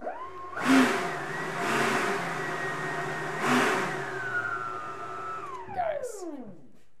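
The 90mm electric ducted fan of an E-Flite Viper jet in a static power test: a whine that rises quickly, holds a steady high pitch with two brief louder surges of throttle, then spools down to a stop near the end.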